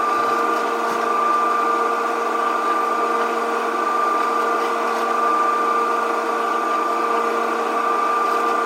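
Modified Whirlpool Gold Series microwave running, with the microwave's own former cooling fan now blowing into the cavity: a steady motor whir with an even hum.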